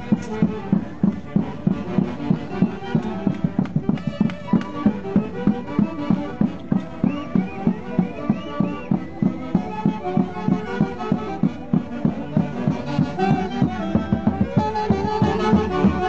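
Andean folk orchestra playing a melody over a steady, quick beat.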